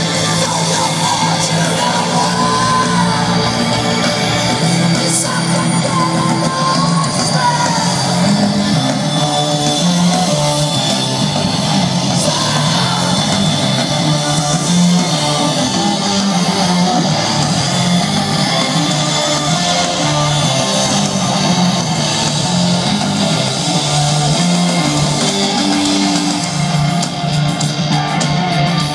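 Rock band playing live through a large outdoor PA, heard from within the crowd: electric guitars over a stepping bass line, with a sung vocal line in the first few seconds.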